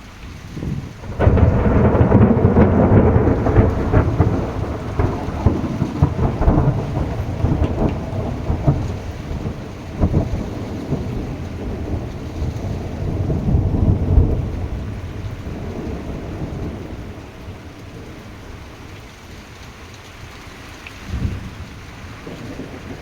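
Thunder in a heavy rainstorm: a sudden loud crack about a second in rolls on into a long rumble that swells again midway and slowly fades, with a shorter rumble near the end, all over steady pouring rain.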